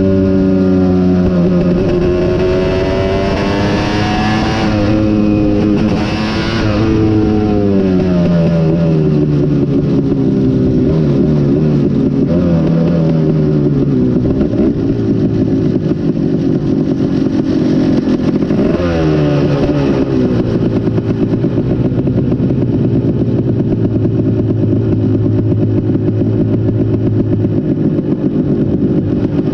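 KTM 250 SX single-cylinder two-stroke motocross engine racing, revs climbing and falling several times. It holds a steadier, lower note through much of the second half.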